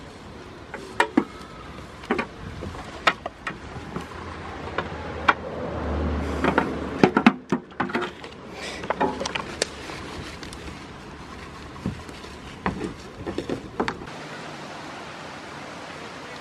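Irregular sharp knocks and clatter of goat hooves on a metal sheet as the goats shift and scramble, stopping a couple of seconds before the end.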